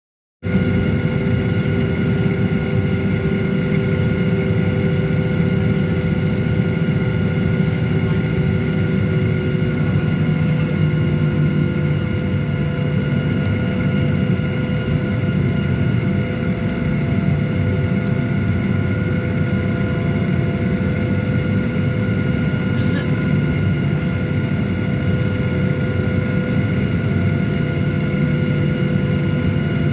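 Boeing 737-800's CFM56-7B turbofan engines running steadily at idle as the jet taxis onto the runway, heard from inside the cabin over the wing: a low rumble under a steady whine of several tones, with no spool-up.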